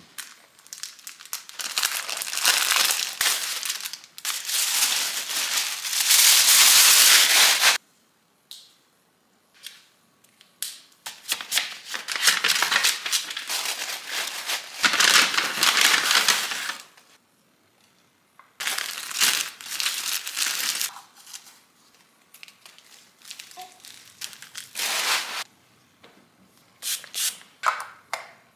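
Tissue paper crinkling and rustling as it is crumpled and packed into a woven gift basket, in several long bursts with short pauses between, loudest a few seconds in.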